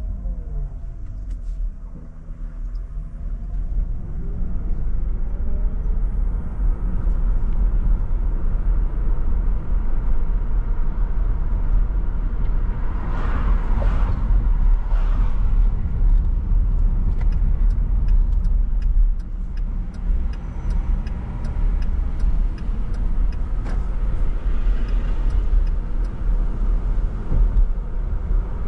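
A car driving in city traffic, with a steady low rumble of engine and road noise. In the first few seconds the engine note drops and then rises again as the car slows and pulls away. Later there is a run of light, regular ticks, about two or three a second.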